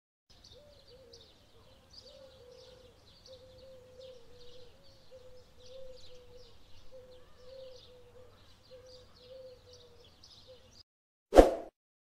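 Night ambience: an animal calling in a steady run of short, slightly falling hoots, about three every two seconds, over high-pitched chirping. The calls stop near the end, and a single sudden loud click-whoosh follows.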